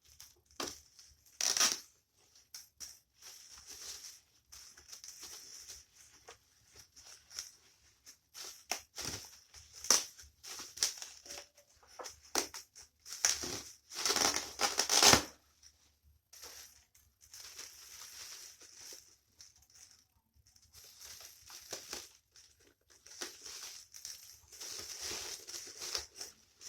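Parcel packaging being torn and crumpled by hand as its wrapping layers are pulled off, in irregular rustling bursts, the loudest a little past halfway.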